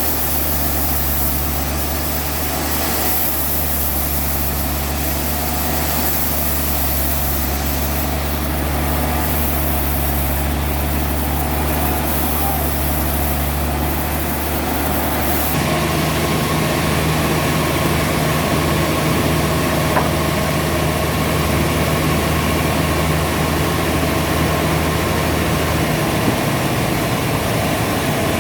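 Sawmill machinery running steadily with a low engine hum. The hum changes pitch abruptly about halfway through.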